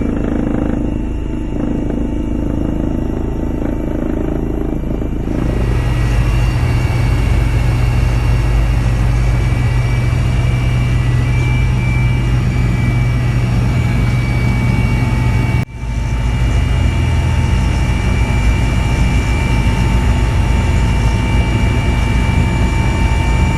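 Steady, loud engine and rotor noise of a rescue helicopter, a constant low hum with a few steady higher tones, broken by a short dropout about two-thirds of the way through.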